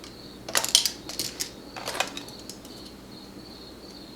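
A quick run of small, sharp clicks and clinks of small hard objects being handled, bunched between about half a second and two seconds in. Under them runs a faint, steady high-pitched hum.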